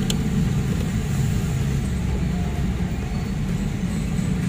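Steady low rumble of a running engine, with one faint click right at the start.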